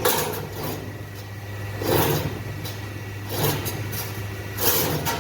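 CNC automatic ring-making machine running as it forms steel TMT bar into rings: a steady motor hum with a sudden metallic stroke every second or two, four times.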